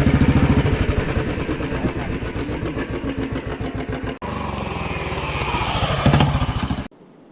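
An engine running with a fast, even pulse, briefly broken about four seconds in and cut off abruptly near the end.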